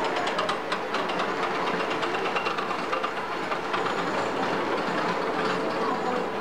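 Steel roller coaster train running along its track: a steady rattling clatter of wheels on the rails.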